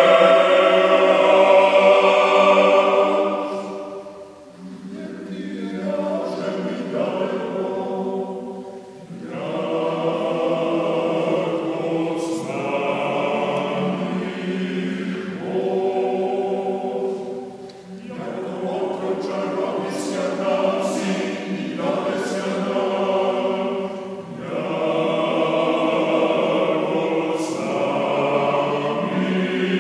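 Male choir of Orthodox priests singing a cappella, sustained chant-like phrases separated by brief pauses.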